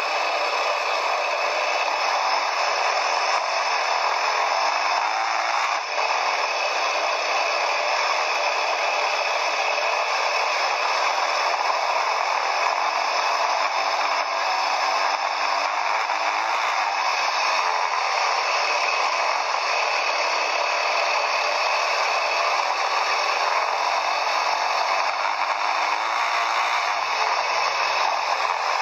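Quad bike (ATV) riding: a steady rattling, rushing noise, with the engine's pitch faintly rising and falling underneath.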